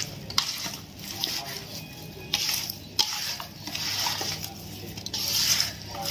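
Hands mixing masala- and oil-coated raw mango pieces in a steel bowl: a wet squelching and rustling that swells and fades with each stroke, with a few clicks of pieces against the metal.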